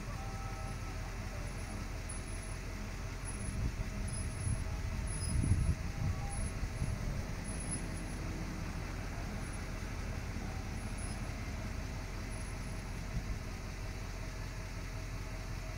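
Classic Toyota Land Cruiser engine running with a steady low rumble, which swells louder about midway as the vehicle pulls away on a dirt track.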